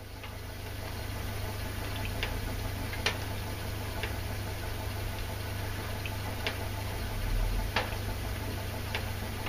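Kontax Stirling engine running on heat from an electric hotplate and turning its fan, giving a steady low hum. A few light, irregular ticks sound over it.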